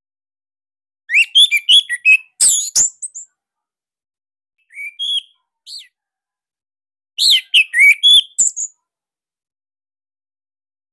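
Orange-headed thrush singing in short bursts of quick, rich whistled notes. There is a dense phrase about a second in, a brief one around five seconds, and another dense phrase about seven seconds in, with silence in between.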